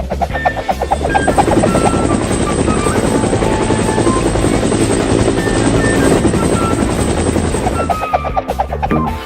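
Rapid, steady chopping of a cartoon helicopter sound effect with background music over it, fading out about eight seconds in.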